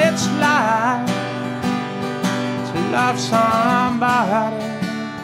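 A man singing live to his own strummed acoustic guitar, twice holding a note with vibrato.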